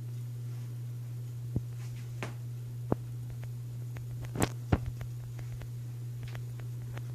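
Loren Sid ceiling fan running with a steady low motor hum. A few sharp clicks and ticks come through irregularly, the loudest pair a little past the middle.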